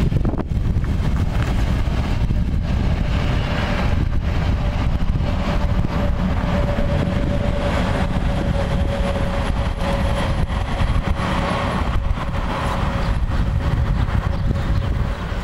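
Passenger train rolling past on the rails, a steady mid-pitched whine running through most of it over a heavy low rumble.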